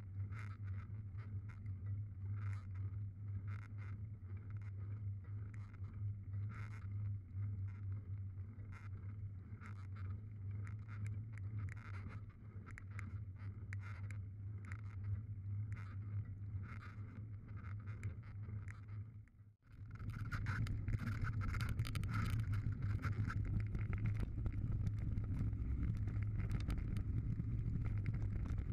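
A mountain bike being ridden on gravel and dirt trail: tyres crunching over loose stones and the bike rattling, over a steady wind rumble on the microphone. About two-thirds of the way through it cuts out for an instant and comes back louder and denser, on rougher, faster ground.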